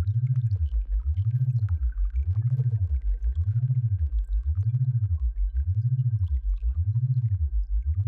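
Synthesized sound-therapy tones for tinnitus relief: a low electronic hum sweeping up and down in pitch in a steady, even warble, about once every 0.7 seconds, with a faint steady high tone held above it.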